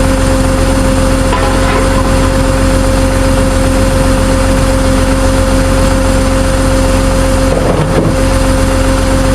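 Tow truck engine running steadily, with a constant whine held over a continuous rumble.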